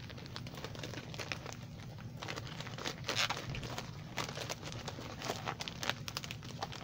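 Plastic poly mailer crinkling and crackling as it is handled and pulled open by hand, busiest and loudest about three seconds in.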